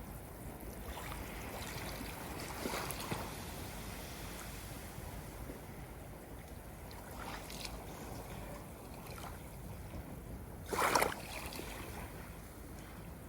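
Ocean water washing and lapping steadily, with a few small splashes and one brief louder splash about eleven seconds in.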